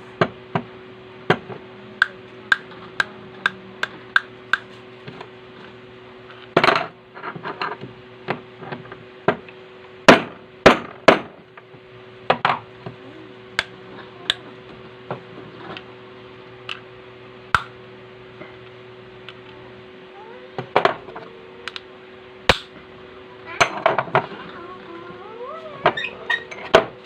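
Sharp metallic taps and knocks from hand tools on sewing machine parts during reassembly: light, evenly spaced taps at about two a second for the first few seconds, then heavier, irregular knocks. A steady hum runs underneath.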